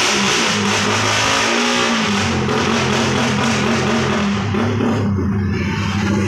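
Small underbone motorcycle with a loud open exhaust revved hard while standing in place, its engine held at high revs with the pitch stepping up and down.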